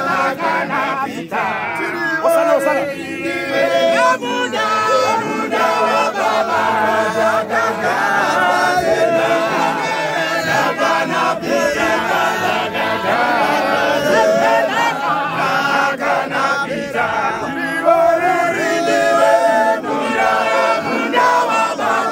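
A crowd of men singing together unaccompanied, many voices overlapping.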